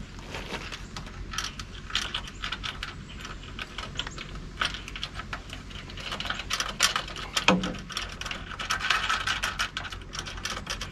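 Small metal hardware clicking and rattling as a nut, lock washer and flat washer are fitted and run onto a work light's mounting bolt, the clicks coming in quick runs in the second half.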